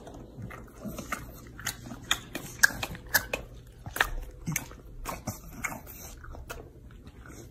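English bulldog chewing a mouthful of dry cereal, with irregular crisp crunches.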